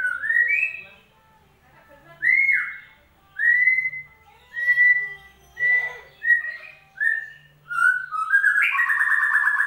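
White-rumped shama (murai batu) song: a run of clear whistled notes, each sliding up and then holding, about one a second and coming quicker later on. It ends in a longer buzzy, trilled phrase.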